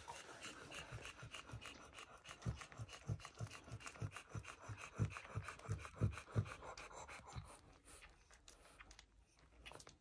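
Newborn French bulldog puppies suckling at their mother, with many quick soft wet clicks and smacks. For a few seconds in the middle there is a run of soft low puffs, about three a second, which then fade.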